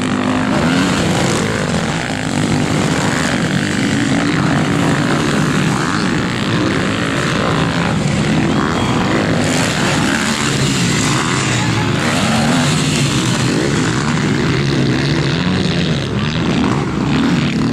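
Several motocross bikes' engines revving and running at high speed as the riders climb a dirt slope and jump a crest, their pitches rising and falling over one another.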